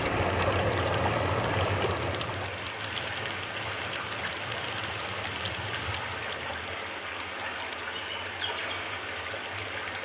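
Steady rushing water sound with scattered small crackles and pops; it drops in level about two seconds in.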